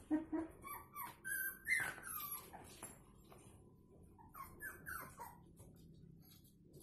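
Dogs whimpering in short, high-pitched cries, some falling in pitch. Several come in the first three seconds and another cluster about four and a half seconds in.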